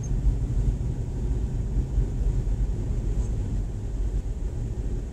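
Steady low rumble of a vehicle driving over a snow-covered road, heard from inside the cabin: engine and tyre noise.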